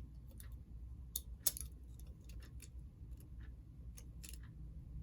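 Scattered light clicks and taps of small model locomotive parts being handled and fitted together, irregular and a few to the second.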